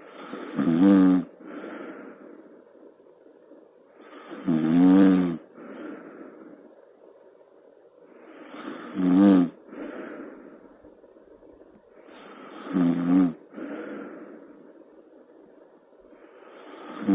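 A sleeping person snoring: a loud snore about every four seconds, four times, each followed about half a second later by a softer breath, with the next snore starting at the very end.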